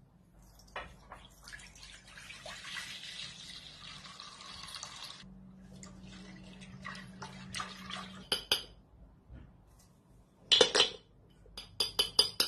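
Milk pouring into a pot in a steady stream for about four seconds. Then a wire whisk stirs and clinks against the pot, with a few loud sharp clinks near the end.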